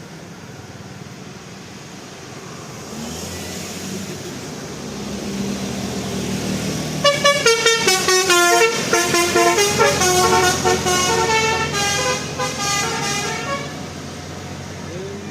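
Bus telolet horn, a multi-trumpet air horn, playing a quick tune of stepping notes for about six seconds, starting about halfway in. Before it comes the rumble of an approaching vehicle, growing louder.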